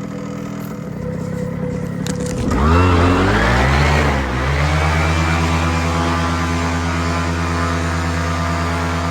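Atom 80 paramotor's single-cylinder two-stroke engine idling, then opened up about two and a half seconds in, its pitch swinging up and down a few times before holding steady at high throttle: the power run for takeoff.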